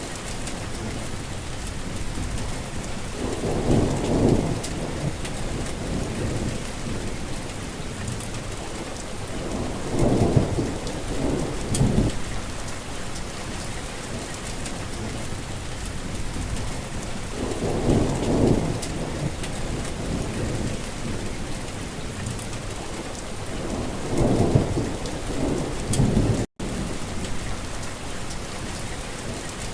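Heavy rain falling steadily, with four low rolls of thunder that swell and fade, spaced several seconds apart. The sound cuts out for an instant a few seconds before the end.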